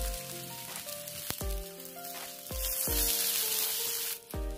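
Garlic-bread tuna sandwich sizzling on a flat griddle pan, the sizzle growing louder for about a second and a half past the middle. Background music with a steady beat plays underneath.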